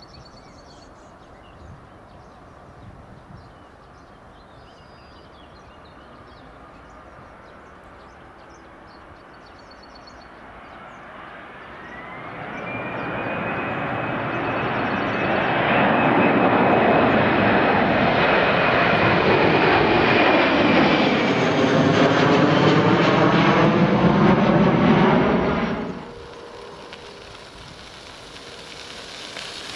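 Airbus A321's twin jet engines at go-around thrust as the airliner aborts its landing and climbs away overhead. The engine noise builds from about ten seconds in to a loud, steady plateau with a high whine, then falls in pitch in a sweeping pattern as the aircraft passes. It drops away sharply about four seconds before the end.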